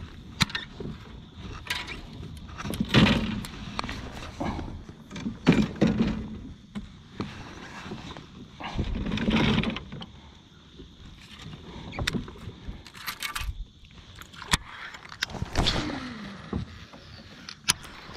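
Irregular knocks, clicks and bumps of handling on a fishing kayak, with a few louder noisy rushes lasting about a second each.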